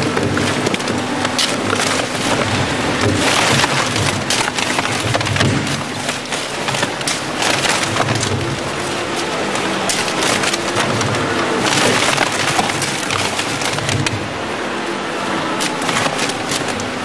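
Grupo SPR RS 85 rotary shear shredder tearing and crushing paper and cardboard tubes between its toothed cutter shafts. It is a dense, continuous crackling and ripping full of sharp snaps, over the steady hum of the machine.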